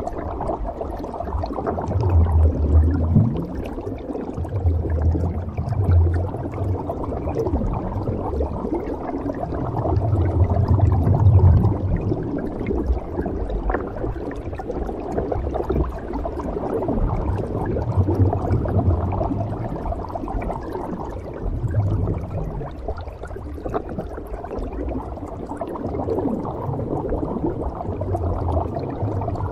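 Scuba diver breathing through a regulator under water: exhaled bubbles rumble in low bursts every four to six seconds over a steady watery hiss.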